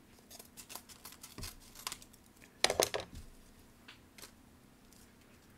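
Paper envelope being handled and opened by hand: scattered light paper crackles and taps, with the loudest cluster about three seconds in.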